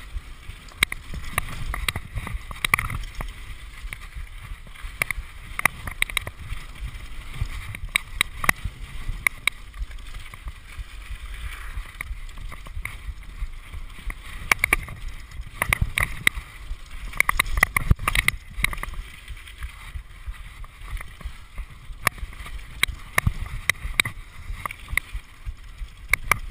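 Mountain bike descending a rough gravel trail at speed: steady rumble of tyres on loose stones, with frequent sharp clicks and rattles from the bike jolting over bumps, and wind buffeting the chest-mounted microphone.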